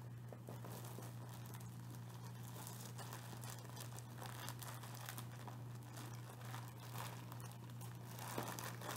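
Plastic bag crinkling in scattered crackles as it is handled and opened, over a steady low hum.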